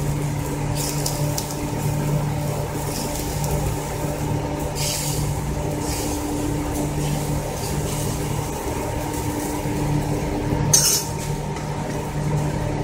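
A metal spoon scraping and clinking against a tawa (flat griddle pan) as an egg-white omelette is spread out, a few short strokes with the sharpest clink about eleven seconds in. A steady low hum runs underneath.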